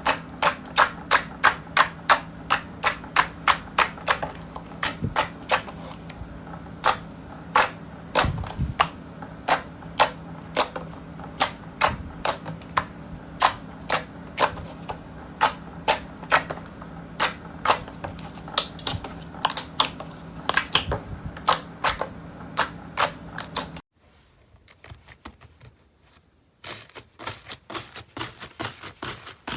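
Slime being pressed and squeezed by hand, giving a rapid series of sharp clicking pops, about three a second, over a low steady hum. The popping cuts off suddenly near the end and resumes fainter a couple of seconds later.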